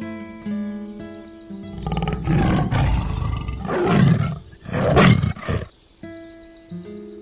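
Tiger roaring three times in quick succession, starting about two seconds in, over background music of held, stepping notes.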